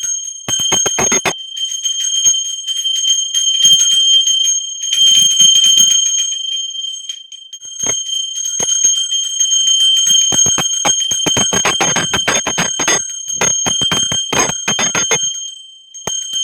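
A metal bell rung rapidly and continuously: a steady high ringing under a quick, uneven run of clapper strikes. The strikes are heaviest from about ten to fifteen seconds in, and the ringing breaks off briefly a little past halfway.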